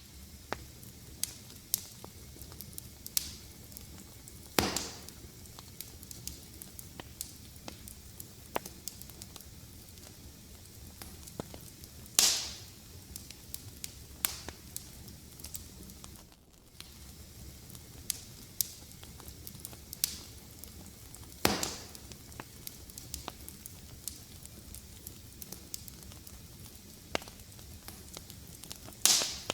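Fireplace fire crackling, with a steady soft hiss under many small clicks and four louder pops spaced about eight seconds apart, each trailing off quickly.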